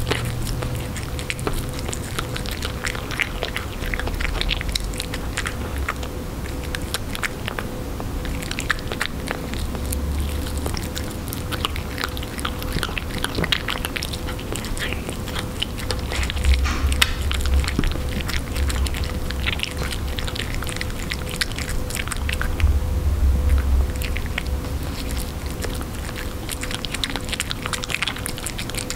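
Russian Blue cat eating wet canned cat food pâté off a tabletop, close up: irregular chewing and mouth clicks with wet smacking.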